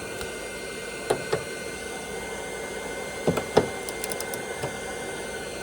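A 1/2-inch click-type torque wrench clicking as it reaches its 80 lb-ft setting, in two pairs of sharp clicks, with a few fainter ticks after, over a steady hum. The clicks mean the Loctited body bolt is still binding and won't break loose at that torque.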